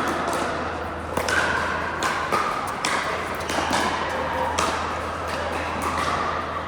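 Pickleball paddles striking the ball: sharp, irregular pops, about one or two a second and some overlapping, ringing in a large hall.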